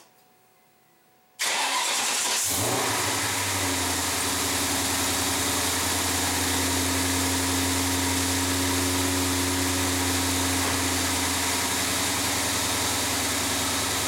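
Ford Mustang GT's 4.6-litre V8 starting: the starter cranks it from about a second and a half in, it catches a second later and settles into a steady idle. A defective ignition coil on cylinder 5 is making that cylinder misfire.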